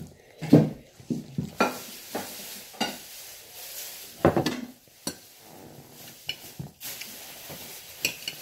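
Metal fork clinking and scraping against a ceramic dinner plate as rice noodles are stirred and picked up, in irregular knocks, the loudest about half a second in and just after four seconds.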